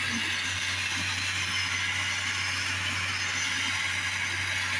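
Steady hissing rush of a gas soldering torch heating a piece of flux-coated silver, over the steady low hum of a fan blowing the flux fumes away.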